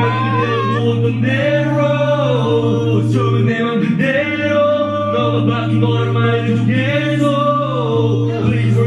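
A male vocalist singing long, gliding melodic lines into a microphone over a backing track of held bass notes and choir-like vocal chords.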